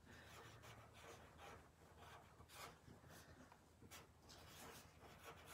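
Faint scratching of a felt-tip marker writing cursive on paper, in short irregular strokes.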